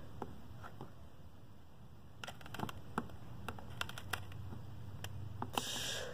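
Faint scattered clicks and light handling noise from a hot glue gun being worked along an LED strip, over a low steady hum, with a short hiss near the end.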